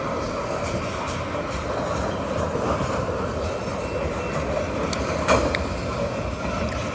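Freight train of tank cars and covered hoppers rolling past close by: a steady rumble and rattle of wheels on rail, with one sharp clank about five seconds in.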